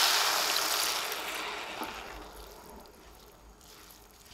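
Hot pan of sprouted moth beans frying in spiced oil hissing and sizzling as a glass of water goes in. The hiss fades away over the first two seconds or so as the water cools the pan.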